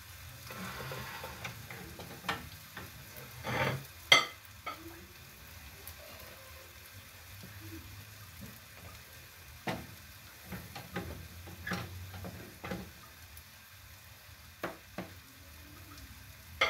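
A wooden spoon scooping and scraping stiff ugali out of a metal pot and knocking against the pot and bowl, in scattered knocks and scrapes; the sharpest knock comes about four seconds in. A faint sizzle from the frying pans on the stove runs underneath.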